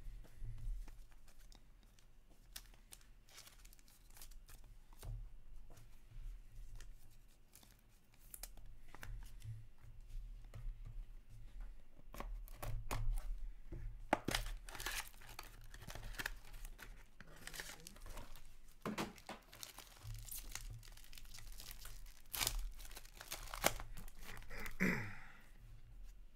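Packaging of a 2021-22 Upper Deck SP Game Used hockey card box being torn open and crinkled by hand: a run of tearing and rustling sounds, sparse at first and busiest from about halfway through, over a low steady hum.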